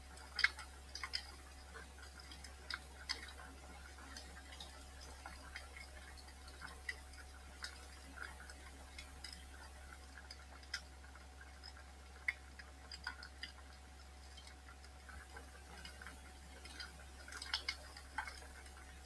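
Wood fire in a fireplace crackling, with irregular sharp pops that come in clusters near the start and again near the end, over a faint steady low hum.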